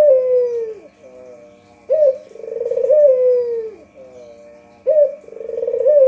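White Barbary dove (puter putih) cooing, the same call repeating about every three seconds: a short clipped note, a swelling rolling trill, then a long falling coo.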